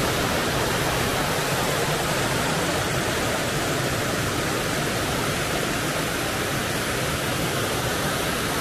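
Jelawang waterfall's water rushing steadily down cascades over rock slabs, a constant even wash of sound.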